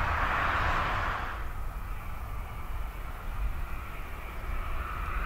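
Audi A3 Sedan 1.4 TFSI moving off, its tyre and engine noise stopping about a second in, followed by a quieter low outdoor rumble.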